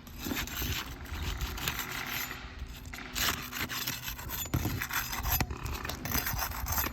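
A tool scraping and rubbing under roof shingles as they are loosened around a damaged area, in irregular strokes with small clicks.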